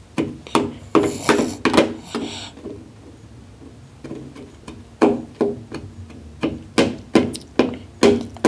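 A fork knocking and scraping against a plate as a toddler stabs at broccoli: a run of sharp taps with a short ring, then scraping, in the first two seconds; a pause; then frequent taps again from about five seconds in.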